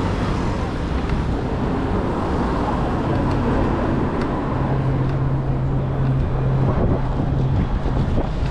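Wind buffeting the microphone over road traffic, with a steady low engine hum from a nearby vehicle for a few seconds in the middle.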